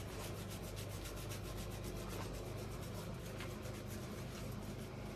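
Hands rubbing shampoo lather into a wet puppy's coat: a soft, even rubbing in quick strokes, several a second.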